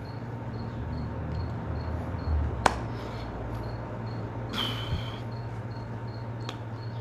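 Room ambience with no speech: a steady low hum under a faint, high, evenly repeated chirp, two or three a second. A single sharp click a little under three seconds in and a brief hiss about two seconds later.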